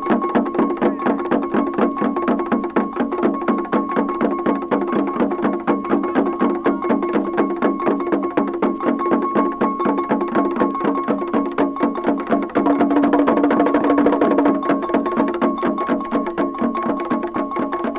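Baoulé drum ensemble of six drums and an iron bell playing a fast, dense, steady interlocking rhythm, heard on an old field recording with little bass. It swells louder about two-thirds of the way through.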